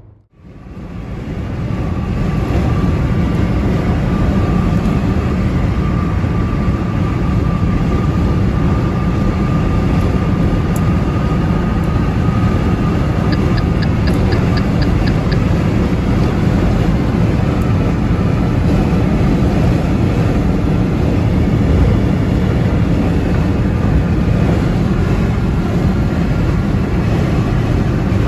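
Steady road and wind roar inside a car cruising at expressway speed, deep and even throughout.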